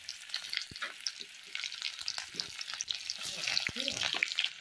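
Onions frying in hot oil in an iron kadai: a steady sizzle with many small crackles and pops.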